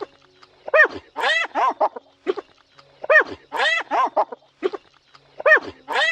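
Short calls from an animal, each rising and falling in pitch, in quick groups of four or five; the group repeats about every two and a half seconds.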